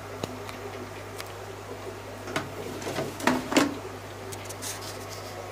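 A steady low hum, with a cluster of sharp clicks and knocks between about two and a half and three and a half seconds in.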